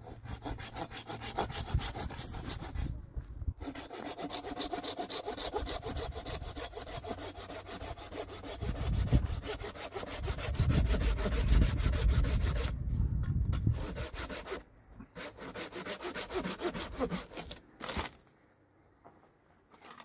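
Hand saw cutting through a tree branch in quick, steady back-and-forth strokes, with a couple of short pauses. The sawing stops about two seconds before the end, after a single sharp knock.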